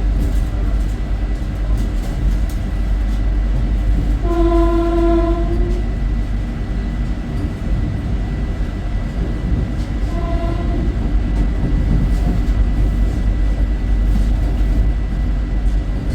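Vande Bharat Express electric trainset running, a steady heavy rumble heard from on board. Its horn sounds twice: a long steady blast about four seconds in, and a shorter, fainter one about ten seconds in.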